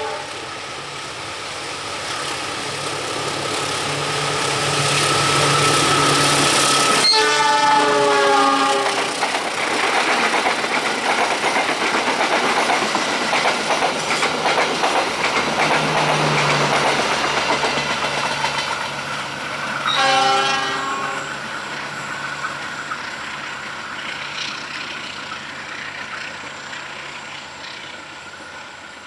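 A passing train: the locomotive's multi-tone horn is just ending at the start, sounds again for about two seconds around seven seconds in as the train comes closest, and gives a shorter blast around twenty seconds. Under the horn, the rumble of the train and the clatter of its wheels on the rails build up, stay loud for a while, then fade away.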